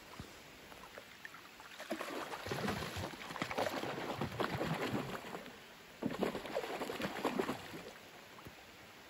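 Water splashing and churning as a fishing net is dragged through the lake surface behind a small boat, in two long stretches, the first about two seconds in and the second about six seconds in. A steady hiss of rain on the water lies underneath.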